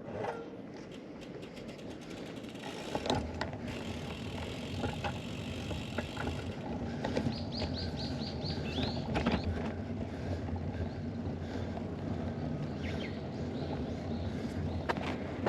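Randonneur touring bicycle on the move: a rapid ticking of the rear freewheel ratchet in the first couple of seconds, then steady road and wind rumble with scattered drivetrain clicks.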